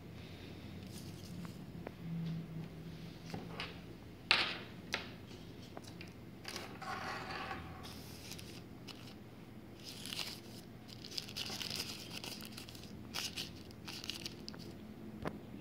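Small translucent plastic accessory bag crinkling and rustling as fingers handle and open it, with scattered clicks and one sharp tap about four seconds in.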